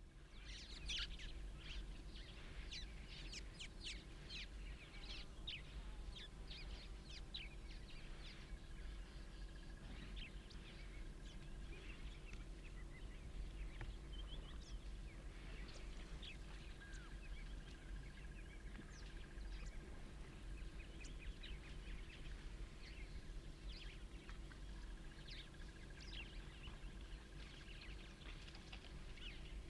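Many small birds chirping and calling in quick, short notes, over a faint steady low hum.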